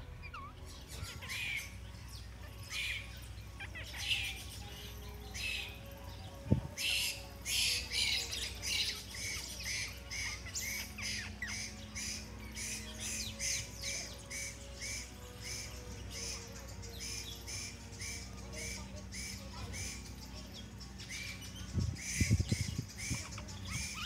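Rose-ringed parakeet giving repeated shrill squawking calls, a few scattered at first, then a steady run of about two calls a second from about eight seconds in. Some low thumps come near the end.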